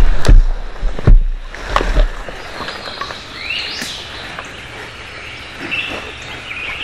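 A hunter shifting position in dry leaves up close: a few knocks and thumps of gear and body movement, loudest in the first second or so. Birds chirp in the woods, with a rising call near the middle.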